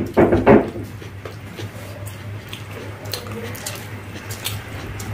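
Wet chewing and mouth-smacking of two people eating fried chicken pakora, with scattered small clicks over a steady low hum.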